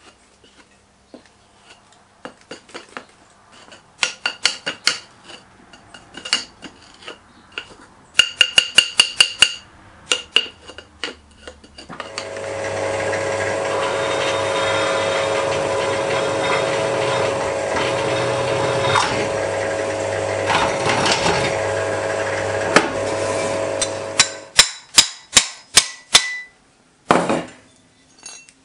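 Sharp metallic knocks and clinks come one after another through the first twelve seconds. Then a pillar drill runs steadily for about twelve seconds, drilling into a metal casting, and stops. More sharp clicks and a short scrape follow near the end.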